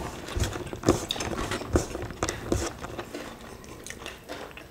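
Close-miked eating sounds of rice and beef sambal eaten by hand: short wet clicks and smacks of fingers working the rice and of mouths chewing, thickest in the first few seconds and sparser toward the end.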